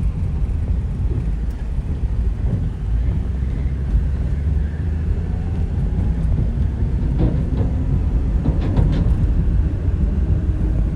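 Steady low rumble of road and engine noise inside a car driving across a bridge.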